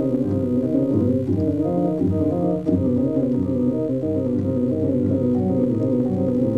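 A two-manual home organ being played: several voices of held notes moving over a sustained bass line.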